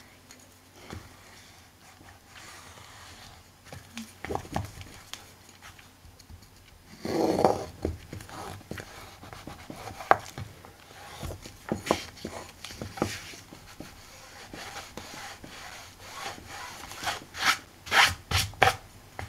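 Bone folder rubbing and scraping over fabric-covered chipboard, pressing the fabric into the spine groove so it sticks, with scattered light taps. A louder stretch of rubbing comes about seven seconds in, and a few sharp clicks near the end.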